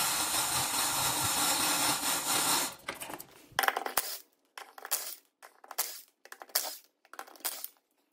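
A cordless drill with a socket taking the lug nuts off a mower's rear wheel, with metal clinking as the nuts come loose. A steady running sound for the first few seconds, then about six short, sharp bursts a little under a second apart.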